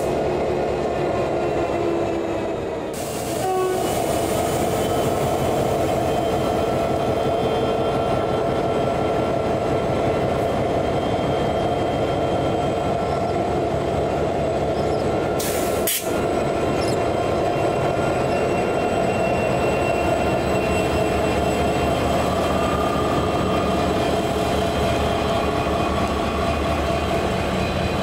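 Queensland Rail 2900-class diesel-electric locomotive 2904 running, a steady engine drone with rail and wheel noise underneath. The sound breaks briefly about three seconds in and again about halfway through.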